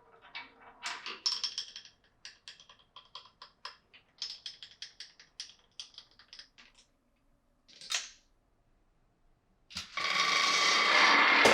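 Glass marbles clicking and clattering down wooden marble-run track, a quick, uneven run of sharp clicks for about seven seconds. After a short pause, a loud, steady rattling rush starts near the end.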